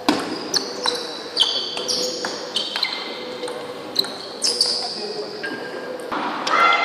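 Table tennis rally: the celluloid ball clicks sharply off the paddles and the table, about two hits a second, with high squeaks of shoes on the sports-hall floor between the hits. The rally stops a few seconds in.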